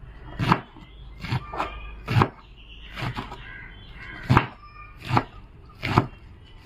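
Kitchen knife chopping vegetables on a chopping board: about seven sharp knocks at an uneven pace.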